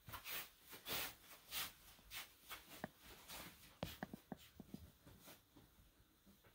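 Soft swishing steps of tabi-socked feet sliding across tatami, about one every half second, followed by a run of small clicks and light knocks.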